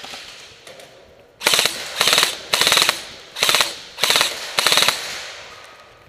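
Echo1 Zombat Stryker M4-style airsoft electric gun (AEG) firing six short full-auto bursts, each a rapid rattle of shots, starting about a second and a half in.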